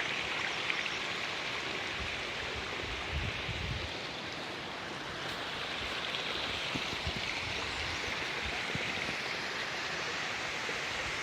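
Waterfall: falling water rushing in a steady, even wash, with a few brief low rumbles partway through.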